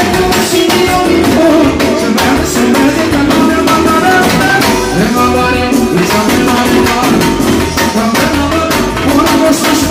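Loud live manele music: a man singing into a microphone over a band with a busy drum beat.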